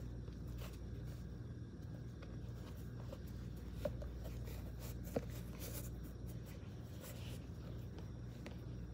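Quiet handling of a pair of loafers: soft rubbing and brushing of the shoes against each other and a shaggy rug, with two light knocks about four and five seconds in, over a steady low hum.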